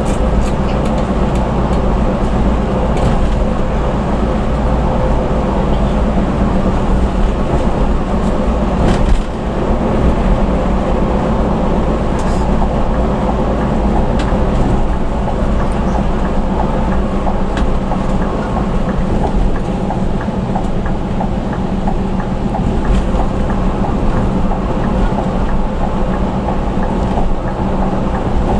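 Steady engine drone and road noise heard inside a moving bus's cabin at speed, with a brief dip about nine seconds in.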